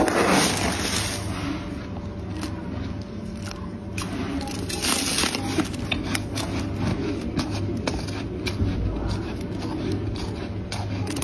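Flaky freezer frost crunching and crackling as it is pressed and scraped, with many small sharp crackles and a louder rush of scraping at the start and again about five seconds in. A steady low hum runs underneath.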